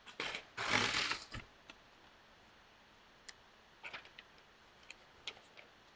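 A page being ripped out of a paper pad: a noisy tearing rip of about a second near the start, followed by a few soft rustles and light ticks as the loose sheet is handled.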